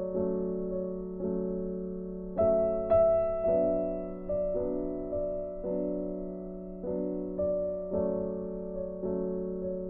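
Background piano music: slow notes or chords struck about once a second, each one fading, over a held low note.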